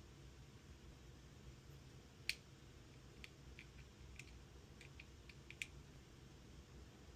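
About a dozen small, sharp clicks over roughly three seconds against near silence, the first and one near the end louder than the rest.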